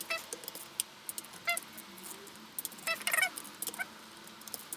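Quarter-inch drive torque wrench ratcheting as gearbox case bolts are tightened to 12 newton metres: sharp metallic clicks with a short ring, a few on their own and several in quick succession about three seconds in.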